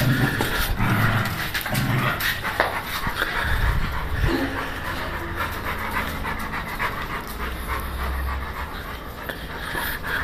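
Dog panting steadily, worked up from rough play with another dog.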